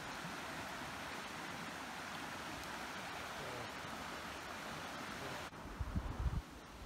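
River water running over rocks: a steady rushing hiss that cuts off suddenly about five and a half seconds in. It is followed by a few low thumps.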